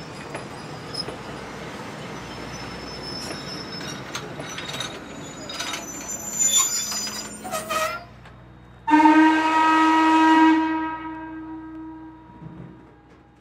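Steam train running with noise, squealing and clanks. About 9 s in, a Norfolk & Western hooter whistle on Hocking Valley No. 3 sounds one steady blast of about two seconds, which then dies away.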